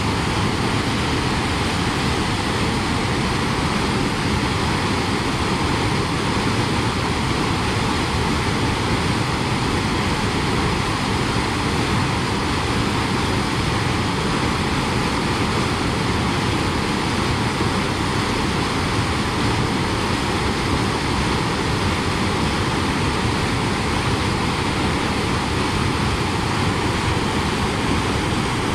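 Steady rush of a fast creek's white water, constant and even throughout.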